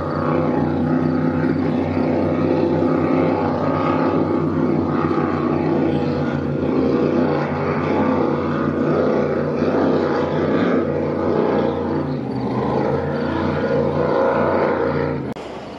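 Racing powerboat engines running flat out, a steady deep drone that dips slightly near the end and then drops away abruptly.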